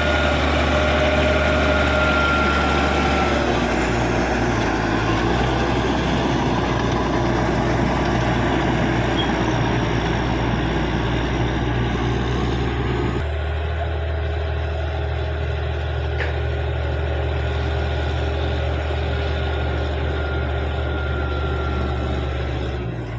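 Caterpillar D6G bulldozer's diesel engine running steadily while working, a deep even hum under a broad mechanical noise. The sound shifts abruptly about halfway through, then carries on steadily.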